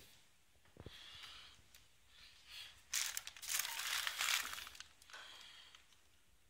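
Plastic crinkling and rustling, loudest for about a second and a half in the middle.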